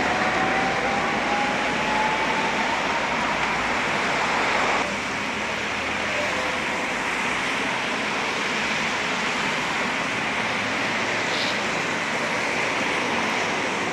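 Tatra T3 tram passing along a wet street over the hiss of tyres on wet road, with a whine that rises slowly in pitch. About five seconds in the sound cuts to a steady wet-street hiss as a tram approaches.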